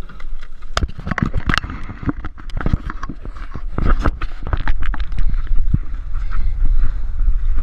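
Hands handling a GoPro action camera on its mount: a quick irregular run of knocks, taps and clicks against the housing, over a steady low rumble.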